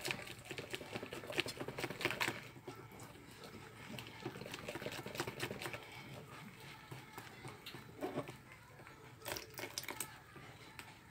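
A whisk beating thick pancake batter in a glass bowl: quick clicks and scrapes of the whisk against the glass with a wet squish of batter. The clicks are busiest in the first couple of seconds and sparser after, with a few louder knocks near the end.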